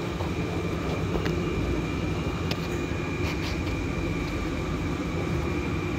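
Steady low mechanical rumble of background machinery, with a few faint clicks.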